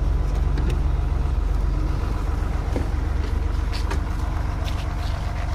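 A large bus's engine idling close by: a steady, even low hum with no revving. A few faint clicks sound over it.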